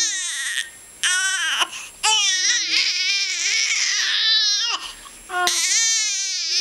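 Newborn baby crying: a run of high, wavering wails broken by short pauses for breath, about four cries in all.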